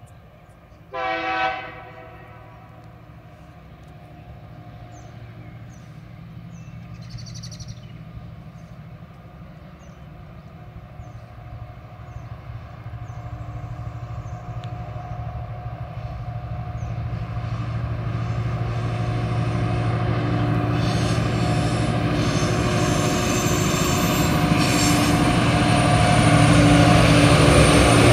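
A diesel locomotive horn sounds one short chord blast about a second in. Then the low rumble of TasRail TR-class diesel locomotives hauling a container train grows steadily louder as the train approaches.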